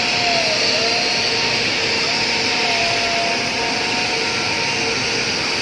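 Steady industrial machinery noise across a shipyard dock, a continuous hiss-like din with faint tones gliding up and down underneath.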